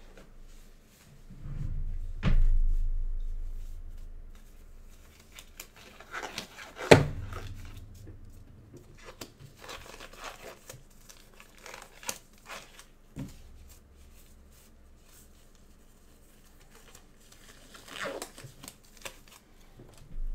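Trading-card packaging being torn open and crinkled by hand: irregular tearing and crackling of wrappers and box. A couple of heavy thumps are handled against the table or microphone, the loudest about 7 seconds in.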